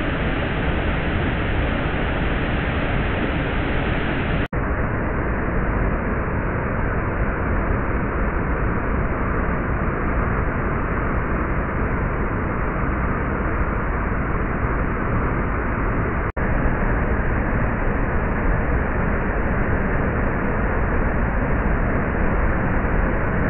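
Floodwater pouring over a weir and churning below it: a steady, loud rush of water, cut by two momentary dropouts about 4.5 and 16.5 seconds in.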